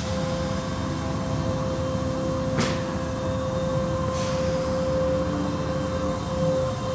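Automatic car wash tunnel equipment running: a steady machine hum with a constant whine. A brief hiss comes about two and a half seconds in, and a fainter one a couple of seconds later.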